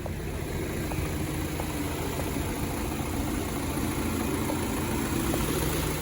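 2013 BMW X3's diesel engine idling steadily, with an even hiss over the low hum.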